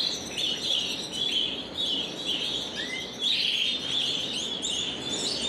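Spanish Timbrado canaries chirping in a continuous, overlapping chatter of short high notes, with one brief rising whistle about three seconds in.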